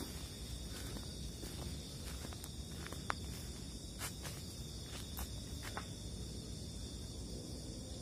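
Night insect chorus of crickets, a steady high buzzing, with a few scattered sharp clicks and rustles in the first six seconds.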